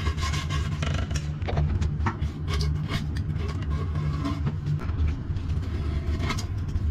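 Metal paint scrapers scraping and clicking in short, irregular strokes as they are worked around under the base of a toilet pan to free it from the floor, over a steady low rumble.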